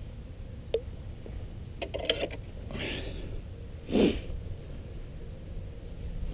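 A man sniffing sharply through his nose a couple of times, the loudest sniff about four seconds in, with a few small clicks in between.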